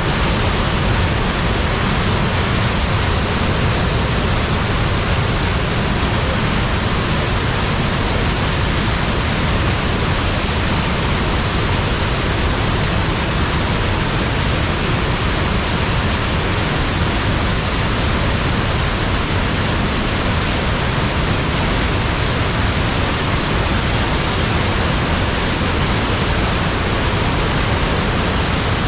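The Rhine Falls: a loud, steady rush of water pouring over the falls, unbroken throughout.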